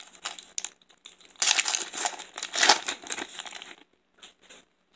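Baseball card pack's wrapper crinkling and tearing as it is opened, loudest through the middle and stopping about a second before the end.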